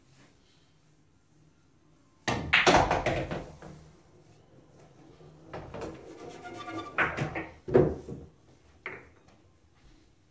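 Pool shot: the cue tip strikes the cue ball and balls click together sharply, followed by balls rolling on the cloth. Later a pocketed ball rumbles and rattles through the pool table's ball-return, ending in two loud wooden thunks.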